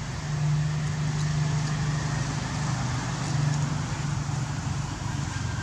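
A steady low hum of a running motor, with a light hiss over it.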